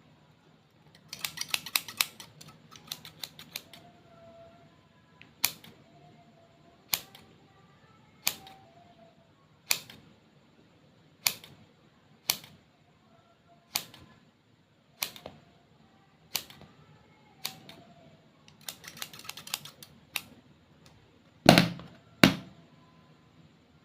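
A series of sharp clicks. There is a fast rattling run of them about a second in and another near the end, with single clicks about every second and a half between, and two louder snaps just before the end.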